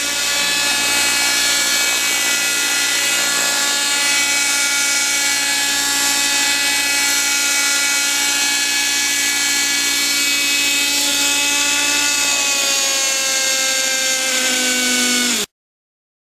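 Raptor 30 V2 radio-controlled helicopter's OS 32SX-H two-stroke glow engine, fitted with a Zimmermann silencer, running steadily at hover with a high-pitched whine. Its pitch sags a little over the last few seconds before the sound cuts off suddenly.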